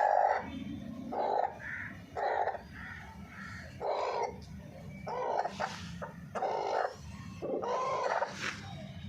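Harsh, caw-like bird calls repeated about seven times, roughly one every second or so, with fainter higher calls between them.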